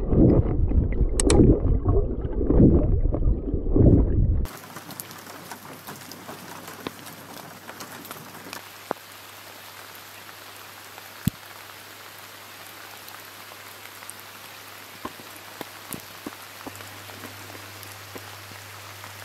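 Muffled underwater sloshing and rumbling, surging in pulses, heard through an underwater camera for the first four seconds or so. It then cuts suddenly to steady rain falling on the loch's surface: a much quieter, even hiss with scattered sharp drop ticks.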